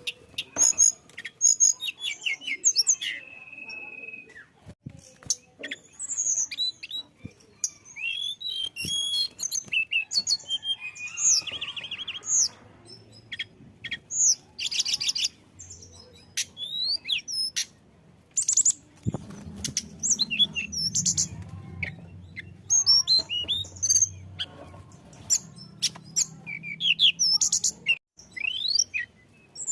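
A tledekan gunung (nuthatch) singing busily: rapid, high-pitched chirps, short trills and sharp notes in quick runs. A faint low hum underlies the middle stretch.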